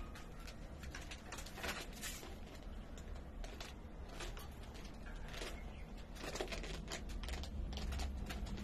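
Pigeons bathing in a shallow tub of water and moving about: irregular light taps, clicks and small splashes over a low steady hum.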